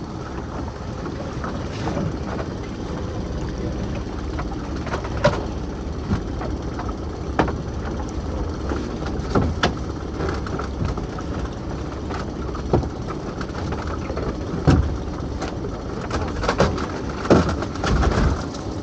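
A lobster pot being hauled aboard a small open fishing boat, over a steady low running hum. Scattered knocks and clicks of rope and gear against the hull come through, and near the end a cluster of louder knocks as the pot comes up over the gunwale.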